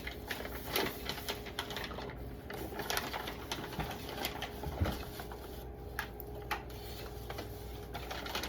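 Paper packing wrap being handled and torn apart along its perforations, with irregular crinkling and crackling, over a steady low hum.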